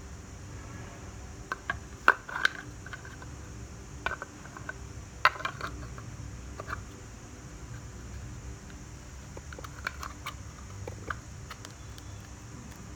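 Sharp plastic clicks and knocks, loudest about two and five seconds in with a few more later, as the opened lithium-ion cordless drill battery pack is handled and its cells are put back into the casing.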